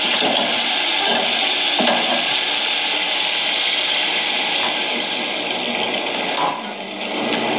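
Paneer curry sizzling steadily in a kadhai on a gas stove, with a few sharp clicks of a spatula against the pan.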